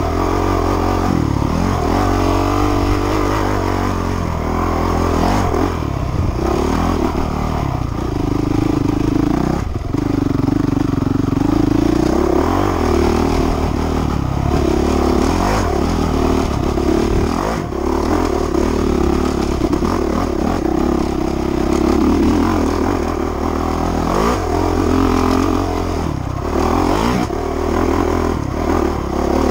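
Honda CRF450 four-stroke dirt bike engine under way on a trail, its revs rising and falling again and again as the throttle is worked, with some rattle from the bike over rough ground.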